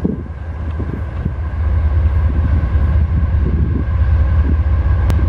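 CSX diesel-electric locomotive passing close by at the head of a double-stack intermodal train: a heavy steady rumble that grows louder about a second and a half in as it draws alongside. A sharp click about five seconds in.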